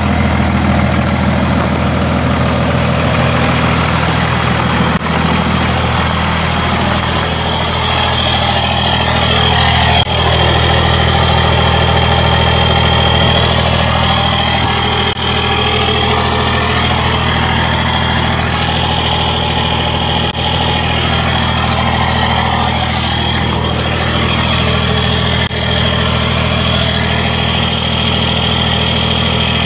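Dodge Ram 2500's 24-valve Cummins turbo-diesel idling steadily, heard close under the truck through a dump exhaust: an open pipe with no tip that ends just ahead of the rear axle.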